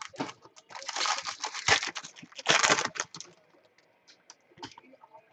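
A foil Bowman Chrome card pack crinkling and crackling as it is torn open by hand, a dense crackle lasting about two seconds, then a few scattered clicks and rustles.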